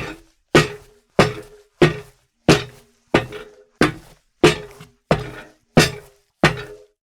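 Sneaker footsteps walking at a steady pace on a steel plate: eleven even steps about two thirds of a second apart, each with a short metallic ring.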